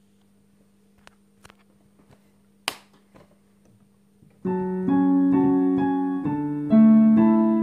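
A faint steady hum with a few light clicks, then about four and a half seconds in, piano chords start. A new chord comes about every half second, each one ringing on.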